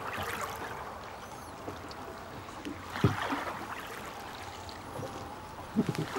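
Oars of a small rowboat dipping and pulling through lake water, with a swish and splash about every three seconds. Low knocks come with the strokes near the middle and near the end.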